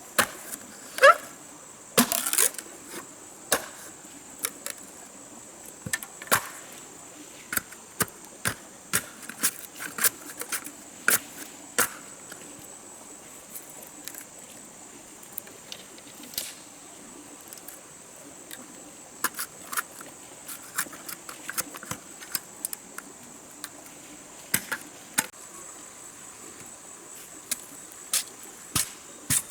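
Irregular sharp knocks and clicks of wood being worked by hand. Several loud strikes come in the first few seconds, then scattered lighter taps. Under them runs a steady high insect drone.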